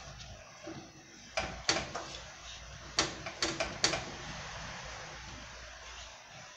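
Wooden spoon knocking and scraping against a non-stick frying pan while stirring cheese melting in hot milk: about six sharp knocks between about one and a half and four seconds in, over a faint steady hiss.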